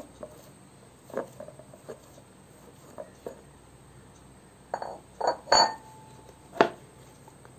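Glass mixing bowl clinking and knocking as it is handled and moved off a wooden board. There are a few scattered light knocks, then a cluster of knocks with a short ringing clink around five seconds in, and a sharp knock about a second later.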